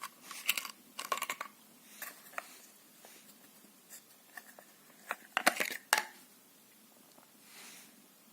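Knives and their sheaths being handled: bursts of short clicks and rustling scrapes, the loudest cluster about five to six seconds in.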